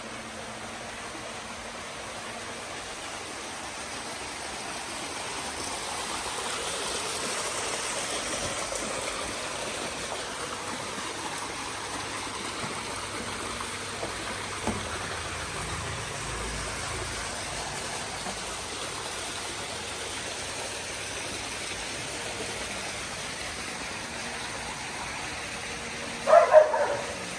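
Steady rush of running water, swelling slightly a few seconds in. Near the end a dog barks twice, sharp and loud.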